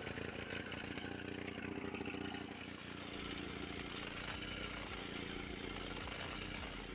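Small petrol engine of an abrasive-disc rail cutting saw running steadily as the disc cuts through a steel rail, making the gap for a Thermit weld.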